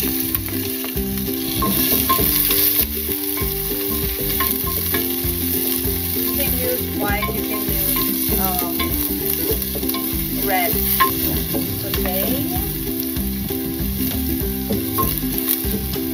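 Chopped onion, ginger and garlic sizzling in hot oil in a stainless steel pot as they are sautéed and stirred with a wooden spoon, with a steady hiss.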